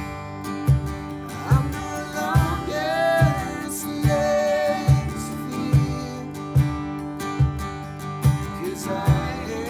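Worship music: acoustic guitar over a steady low beat that falls a little under once a second.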